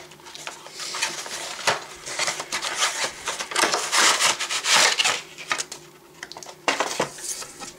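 Packaging being torn and pulled open by hand: ripping and crinkling, loudest about four to five seconds in, with a few short knocks, some of them near the end.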